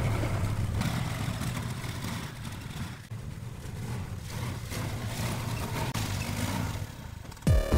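A side-by-side utility vehicle's engine running as it drives along a dirt trail. It is steady for the first few seconds and then quieter. Just before the end, a loud electronic music intro cuts in with a falling sweep.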